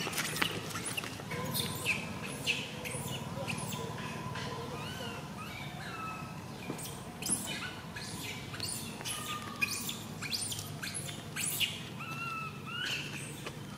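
Baby long-tailed macaque crying: short, high squeals that rise and fall, repeated in bouts, mixed with sharper chirps.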